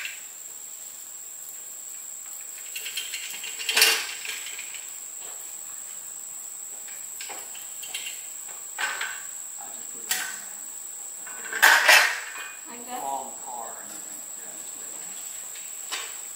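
Metal convertible hand truck clanking and rattling as it is handled, rolled over concrete and laid down, with separate clanks about 4, 9, 10, 12 and 16 seconds in, the loudest around 12 seconds. A steady high insect drone runs underneath.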